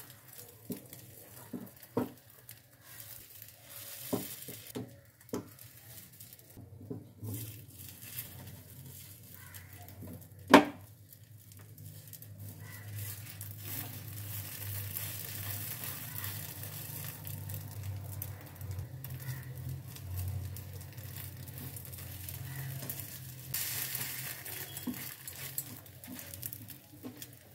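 Omelette frying in a non-stick frying pan over a low-to-medium flame, a gentle sizzle under a steady low hum, while a plastic slotted spatula scrapes and taps against the pan as the omelette is lifted and folded. A single sharp knock of utensil on pan about ten seconds in is the loudest sound.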